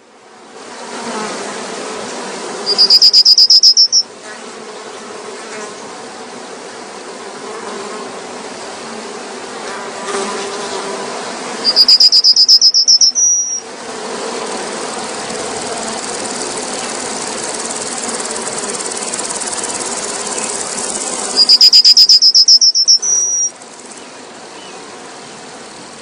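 A high, fast-pulsed trilling call, the loudest sound, comes three times about ten seconds apart over a steady, even background hiss of outdoor ambience.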